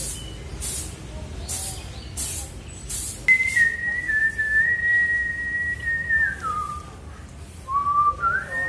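Masking tape being pulled off a freshly spray-painted motorcycle wheel, a few short ripping bursts in the first three seconds. Then a person whistling: one long held note, then lower notes that rise again near the end.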